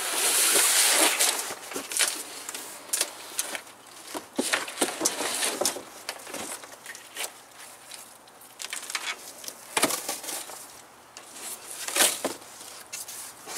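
Large cardboard shipping box being handled and pulled open: a rustling scrape of cardboard at the start, then irregular sharp crackles and knocks as the flaps and packing are worked loose around the solar panel inside.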